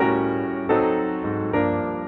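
Background music: piano playing slow chords, each struck and left to fade, with a new chord coming in under a second in.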